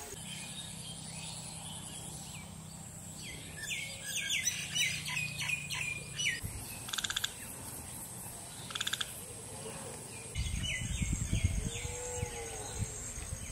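Birds chirping in runs of quick, falling calls, with a couple of short rapid trills, over a steady high insect whine. A low rushing noise comes in about two thirds of the way through.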